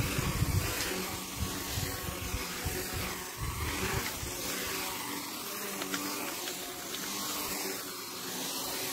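A small electric motor whirring steadily, with an uneven low rumble underneath.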